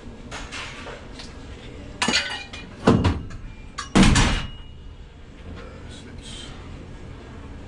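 Scrap metal clanking as pieces are handled, with three loud clanks about two, three and four seconds in.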